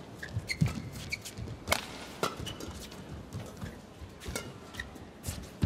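Badminton rally: about five sharp cracks of rackets striking the shuttlecock at uneven intervals, with short high squeaks of court shoes on the mat between the shots.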